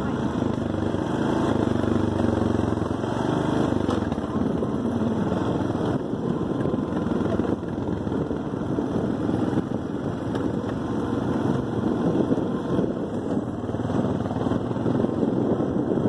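Four-wheeler (ATV) engine running steadily as it rides along.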